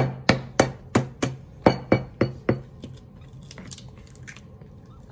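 Raw eggs tapped repeatedly against the rim of a ceramic bowl to crack them, about nine quick clinking taps, three or four a second, that stop about two and a half seconds in.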